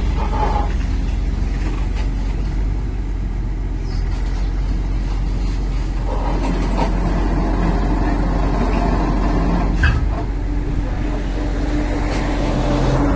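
JCB 385 LC tracked excavator's diesel engine running steadily while its hydraulics move the boom and bucket, with one sharp knock about ten seconds in.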